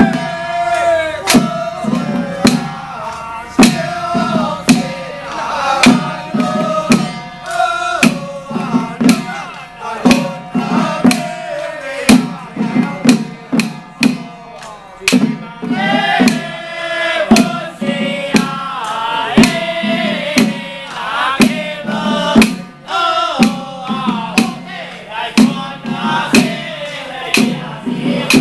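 Traditional temple ritual music: frequent drum and percussion strikes under a wavering melodic line that bends in pitch, playing throughout.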